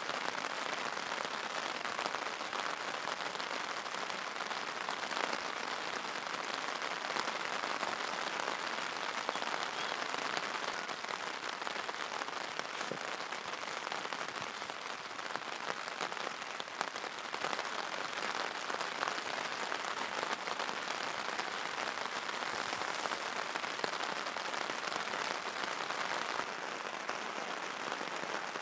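Steady heavy rain pattering on a tarp overhead, a dense, even patter of drops.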